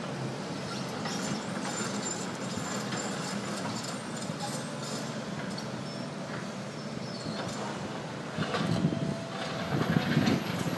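Tracked excavators working a rubble pile: diesel engines running steadily under a continuous clatter of broken masonry and metal. About eight seconds in it grows louder, with heavier knocks as a bucket digs into and drops rubble.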